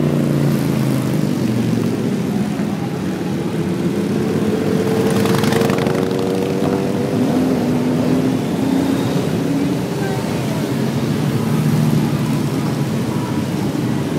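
A procession of motorcycles riding past at low speed, several engines running at once, their notes overlapping and drifting up and down in pitch.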